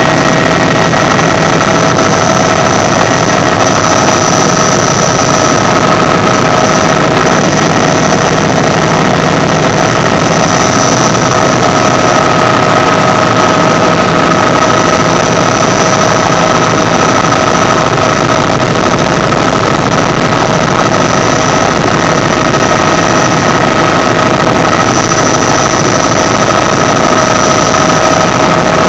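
Bell 206 JetRanger III helicopter heard from inside the cockpit: its turboshaft turbine whine, several steady high tones, runs over a dense wash of engine and rotor noise as the helicopter moves low along a runway under power.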